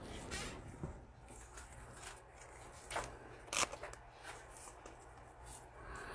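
Faint handling of trading cards by gloved hands: a few light taps and slides as cards are picked up and set down, the loudest a little over halfway through.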